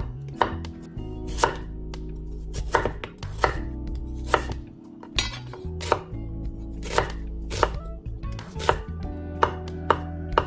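Kitchen knife slicing zucchini, onion and shiitake mushrooms on an end-grain wooden cutting board: sharp knocks of the blade meeting the wood, about two a second at an unhurried, uneven pace.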